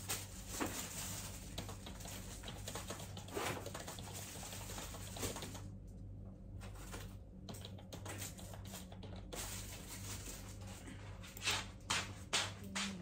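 Faint, irregular rustling and clicking of household items being rummaged through and handled across a small room, over a steady low hum. A few louder knocks come near the end.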